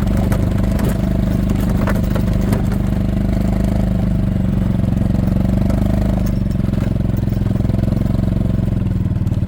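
Golf cart engine running steadily as the cart drives, a loud, even low hum with a rapid pulse.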